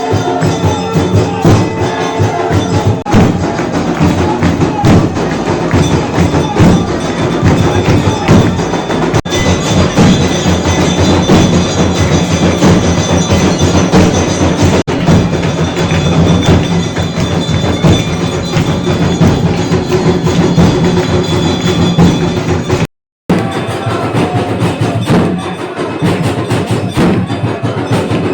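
Aarti music: bells ringing steadily over fast drum and percussion beats. It cuts out for a moment near the end.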